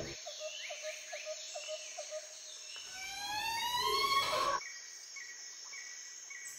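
Soft soundtrack effects: a run of short, evenly spaced chirps, about three a second, like a cricket or small bird, then rising gliding tones about halfway through and a couple of held high tones near the end.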